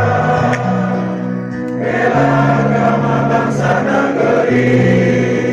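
A choir singing long held chords that shift to new notes twice.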